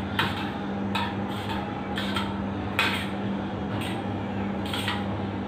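A spoon clinking irregularly against a steel bowl while whisking eggs for an omelette, over a steady low hum.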